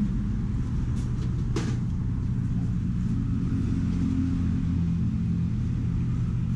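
Steady low rumble of road traffic with an engine hum, and a single sharp click about one and a half seconds in.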